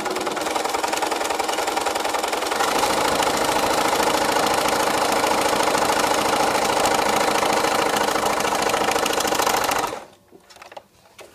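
Sewing machine running a straight stitch through a rolled hem foot, a fast, even, steady mechanical chatter. It gets louder about two and a half seconds in and stops abruptly near the end, followed by a few faint clicks.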